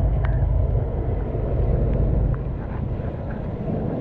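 A steady low outdoor rumble, with a few faint clicks and scrapes of a hand digging tool working a target out of wet soil.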